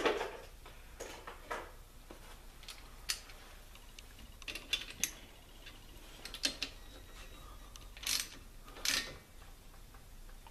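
Scattered light metal clicks, scrapes and knocks of hand tools and caliper bolts being handled while a brake caliper is bolted back on, with a couple of sharper knocks near the end.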